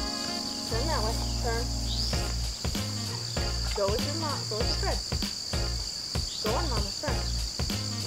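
Steady, high insect chorus of summer crickets or katydids, with background music playing.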